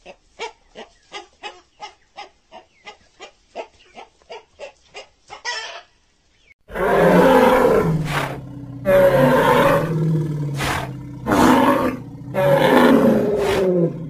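Dinosaur sound effects. First comes a quick string of short chirping calls for Caudipteryx, about three a second, which stops about five and a half seconds in. After a second's pause come several long, loud, deep roars for Centrosaurus, separated by short breaks.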